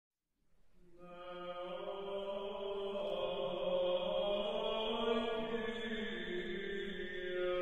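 Background music of slow, chant-like singing in long held notes, fading in over about the first second.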